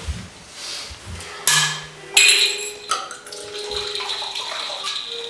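Liquid poured from a glass bottle into a glass tumbler, a steady splashing pour running for the last two seconds or so. Before it, about two seconds in, a sharp glassy knock with a brief ring.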